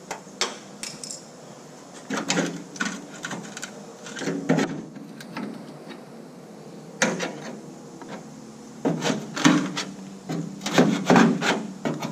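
Rusted sheet-metal door skin of a Ford L9000 cab being worked and bent loose by hand after being cut out, giving irregular clusters of metallic clanks, knocks and scrapes; it is still held by spot welds.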